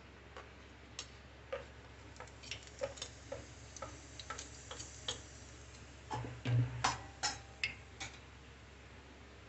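Cumin seeds crackling and popping in hot oil as they are tempered with dried red chillies. It is an irregular scatter of sharp pops, thickest a few seconds in, with the loudest pops about six to eight seconds in.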